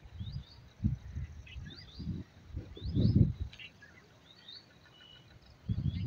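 Small birds chirping in short, repeated rising calls, over wind buffeting the microphone in low rumbling gusts, the strongest about three seconds in and again near the end.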